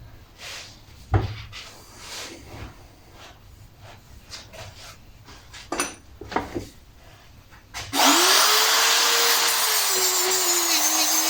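Metal parts and tools knocked and handled, with one sharp knock about a second in. About eight seconds in, an electric power tool starts and grinds into the metal with a loud steady hiss. Its motor whine rises, then drops and settles lower as it takes the load.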